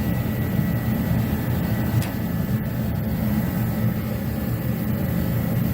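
Steady low rumble of a heater running, with a faint click about two seconds in.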